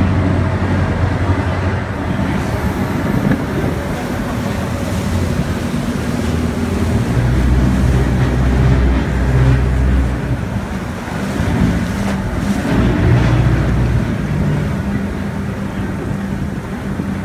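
Passenger water bus's engine running with a steady low hum, heavier for several seconds in the middle, over the rush of its churning wake and wind buffeting the microphone.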